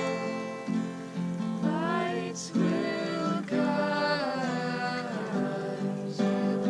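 Acoustic guitar strummed in chords, with a voice singing along for a few seconds in the middle.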